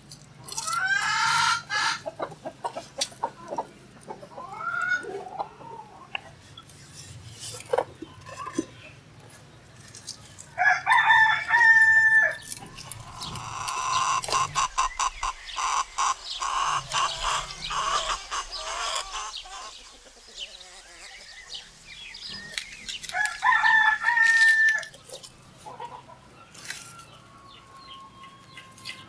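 Village roosters crowing, about three times (near the start, about 11 seconds in and about 24 seconds in), with chickens clucking in between. Light taps and rustles of hands handling the ingredients run under them.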